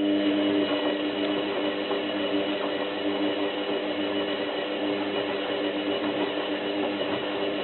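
Zanussi FLA1002W washing machine's motor running steadily for about eight seconds, a hum with a thin high whine, as the drum turns the duvet wash.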